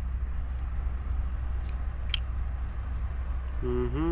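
A few light clicks over a steady low rumble, with a short bit of voice near the end.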